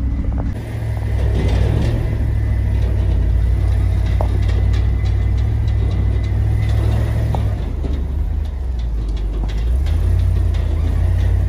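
Pickup truck engine running under load as it climbs a rutted dirt road, heard from inside the cab as a heavy low drone with scattered small ticks and knocks from the road. The drone eases off for a couple of seconds past the middle, then picks up again.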